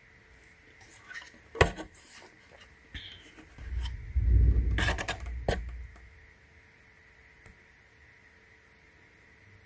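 Handling noises of hard parts being moved: a sharp knock about one and a half seconds in, then a low rumbling shuffle with a couple of clicks from about four to five and a half seconds in.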